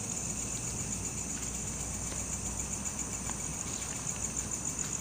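Insects trilling steadily: a high, rapidly pulsing trill, over a faint low rumble.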